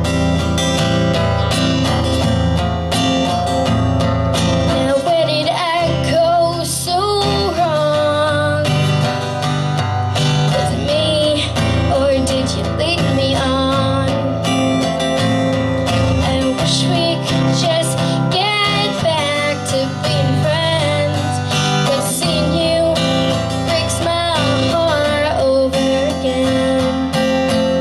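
Acoustic guitar strummed steadily, with a woman singing over it from about five seconds in, in phrases that come and go.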